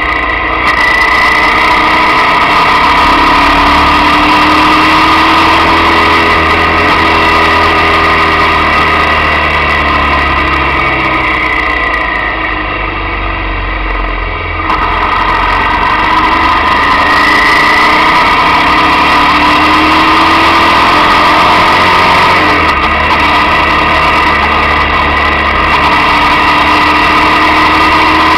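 Motorcycle engine running under way, its pitch rising and falling over several seconds. About twelve seconds in it eases off and goes duller, then comes back suddenly about three seconds later.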